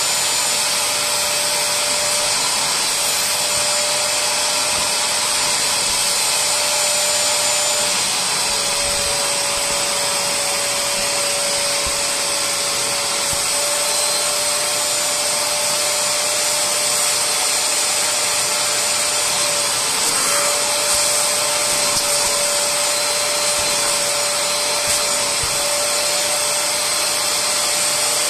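Bissell SpotClean Pro spot cleaner's suction motor running steadily, a steady whine over airy hiss, as its hand tool is pressed to fabric upholstery to extract.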